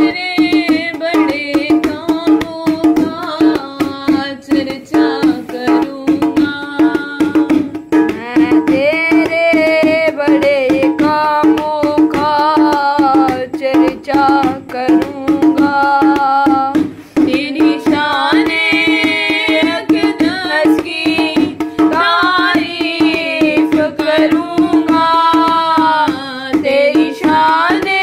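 Devotional Hindi-Urdu worship song: a melody sung over a held low note, with quick tabla strokes throughout.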